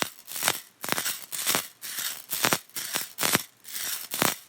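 Foley sound effect: an uneven series of short, noisy rattling shakes, about two a second.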